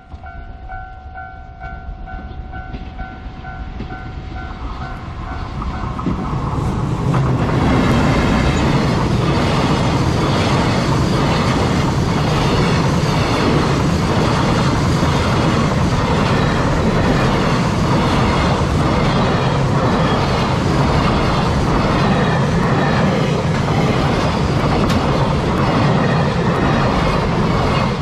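A level-crossing warning bell rings with a steady repeating tone. From about four seconds in, a freight train hauled by an EF210 electric locomotive comes closer. From about seven seconds it passes close by, and its container wagons rumble and clatter over the rails until the end.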